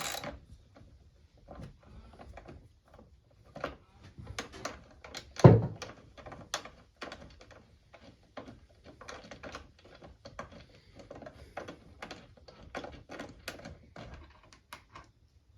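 Socket ratchet clicking in short, irregular runs as bolts are undone, with one loud clunk about five and a half seconds in.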